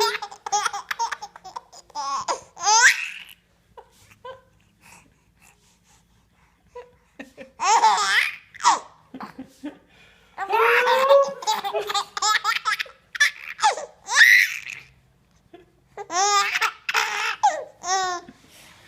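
A baby laughing in repeated bouts of fast, high-pitched laughter, with quiet pauses of a few seconds between them.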